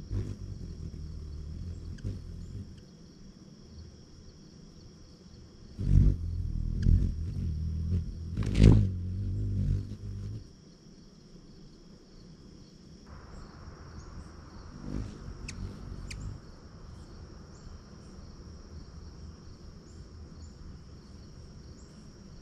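Ruby-throated hummingbird's wings humming low while it hovers at a nectar feeder. The hum comes in spells, loudest from about six to ten seconds in, with a sharp thump near nine seconds. Under it all runs a steady high trilling of insects.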